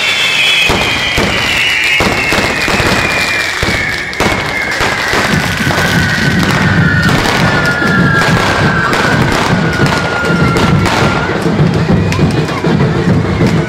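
Fireworks crackling with many sharp bangs, and a long whistle that falls slowly in pitch and stops about eleven seconds in. A low rumble joins from about five seconds in, with music underneath.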